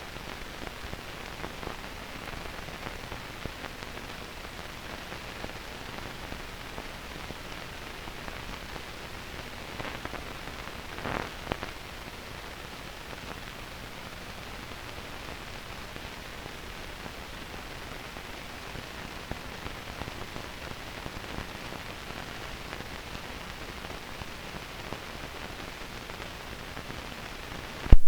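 Steady hiss and fine crackle of an old film soundtrack with no recorded sound on it, with a slightly louder burst of crackle about eleven seconds in.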